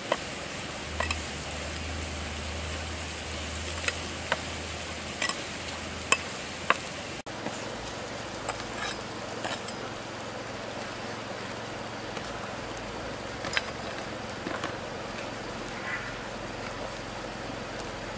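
Worms frying in a metal pan over a wood fire: a steady sizzle, with sharp clicks of a knife blade stirring and tapping against the pan, most of them in the first seven seconds.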